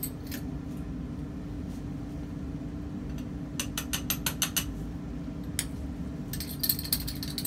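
Light glass ticks and clinks as solid tartaric acid is tipped and tapped from a small glass beaker into a test tube: a quick run of about seven ticks midway and a denser flurry near the end, over a steady low hum.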